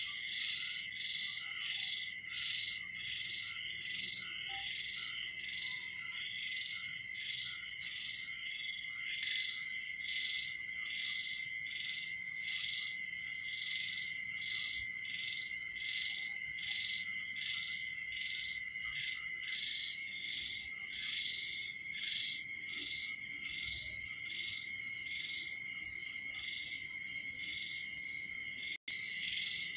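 Night chorus of calling animals: rhythmic pulsing calls repeating about one and a half times a second over a steady high trill, with a momentary dropout near the end.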